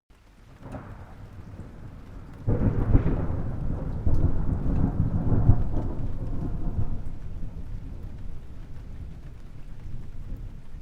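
Thunder: a low rumble builds, then a loud crack-onset about two and a half seconds in with a second surge about a second later, rolling and slowly fading away.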